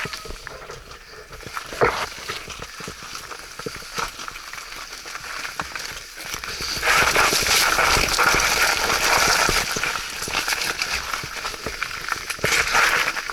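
Mountain bike riding through wet mud: tyres hissing and splashing with scattered clicks and knocks, growing much louder from about seven seconds in.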